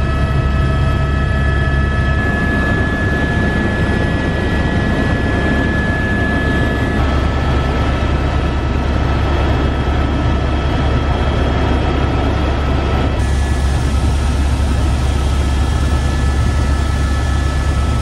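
Helicopter in flight heard from inside the cabin: a loud, steady drone of engine and rotor with a steady high whine over it.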